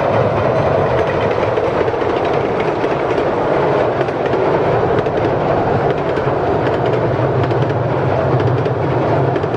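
A 15-inch gauge miniature steam locomotive and its train running past at speed: a loud, steady rush of rapid exhaust and rolling wheels clattering over the rail joints.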